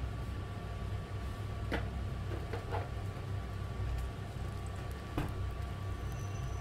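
Steady low hum of a stove heating a frying pan of olive oil and a garlic clove, with a few faint clicks from the warming pan. The oil is heating but not yet sizzling.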